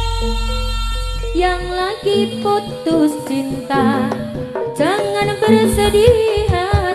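Live Javanese jaranan ensemble music. Ringing gong and gong-pot notes with a deep low hum hold through the first two seconds and fade. A singer's wavering, ornamented vocal line then comes in over kendang drum strokes.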